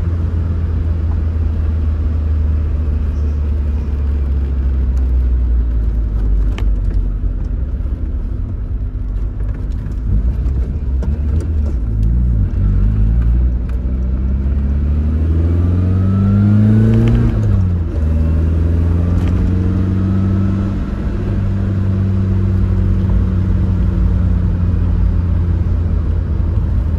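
Tofaş Doğan SLX's four-cylinder engine running, then revving up with a rising pitch about halfway through and dropping off sharply a few seconds later before settling back to a steady run.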